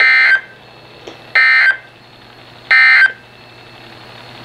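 EAS end-of-message (EOM) SAME data bursts over NOAA Weather Radio: three short, identical bursts of warbling digital data tones about a second and a half apart, signalling the end of the Special Marine Warning broadcast.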